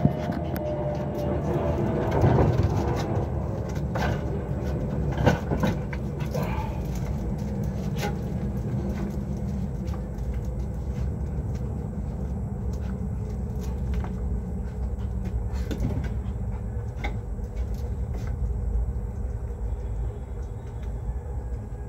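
Knocks and rubbing from a phone being handled and propped up over the first few seconds, over a steady low rumble that runs throughout.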